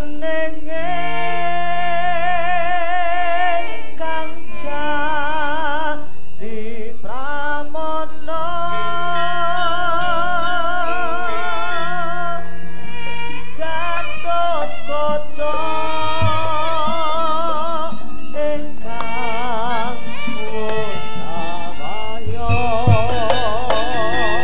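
Javanese gamelan accompaniment for wayang kulit: held metallophone tones under a high sung melody with a wide, wavering vibrato. Near the end, sharp knocks and low drum strokes come in.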